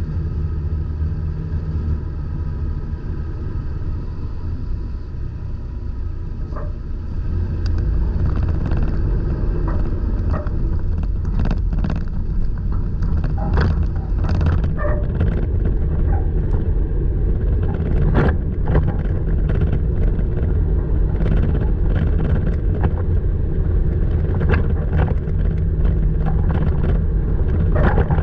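Toyota Tacoma driving on a rough dirt trail: a steady low rumble of engine and tyres that grows louder about seven seconds in. From then on it is joined by frequent short squeaks, knocks and rattles from the truck as it jolts over the ground.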